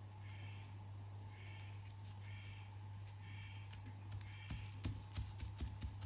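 Hands pressing and smoothing a dry shed snakeskin onto an artboard: a cluster of soft knocks and papery crackles in the last second and a half. Under it, a steady low hum and a faint high chirp repeating about once a second.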